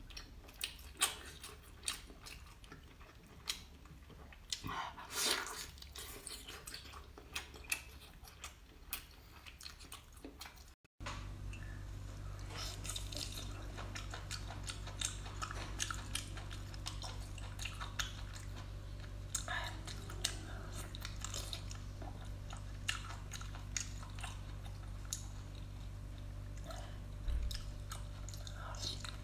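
Close-miked chewing and biting while eating seafood, with many sharp clicks and short crunchy cracks. About eleven seconds in the sound cuts out for a moment, and after that a steady low hum runs underneath the eating sounds.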